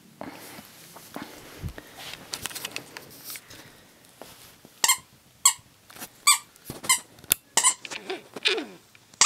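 A squeaky dog toy, likely a plush fox, squeaked repeatedly as a puppy chews it: about seven sharp squeaks at uneven intervals, after a few seconds of scuffling as she handles it.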